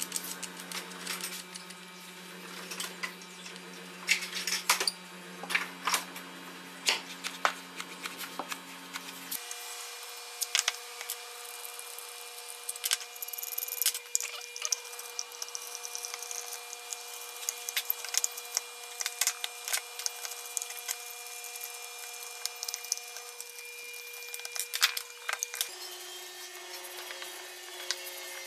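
Frequent small clicks, taps and knocks of hand-assembling a wooden marking gauge: screws, bolts, a clear acrylic plate and wooden fence pieces handled and set down on a wooden workbench. A steady low hum runs underneath, and its pitch shifts twice.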